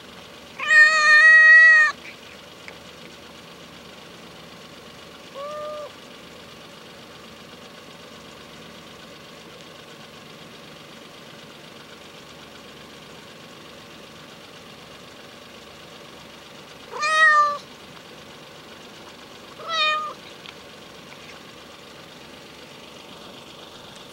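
A hungry ginger stray cat meowing four times: a long, loud call about half a second in, a short faint one a few seconds later, then two shorter calls about three quarters of the way through.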